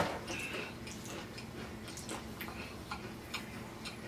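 Irregular soft clicks and ticks over a faint steady low hum.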